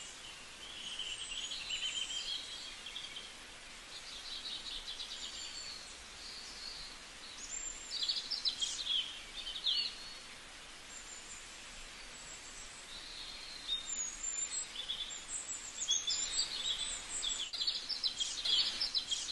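Small birds chirping and twittering in repeated high bursts, busiest about halfway through and again near the end, over a steady faint hiss.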